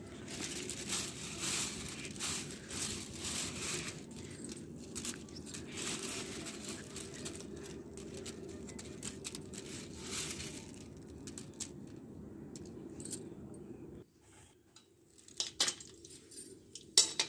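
Steady hiss with scattered light clinks and rattles, as of brittle sun-dried rice jalebis being handled. The hiss cuts off suddenly about fourteen seconds in, leaving a few light clicks.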